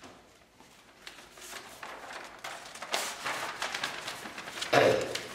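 A rolled sheet of paper being handled and unrolled, rustling and crackling, with a louder thump near the end.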